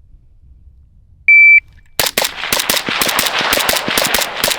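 A shot timer gives one high beep about a second in. Half a second later a suppressed Zastava PAP M85 5.56 AK-pattern rifle starts a rapid string of shots, about five or six a second, still firing at the end.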